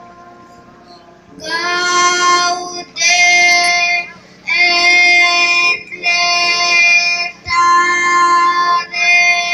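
A child singing in long, held notes, phrase after phrase with short breaks between, starting about a second and a half in after a quiet moment.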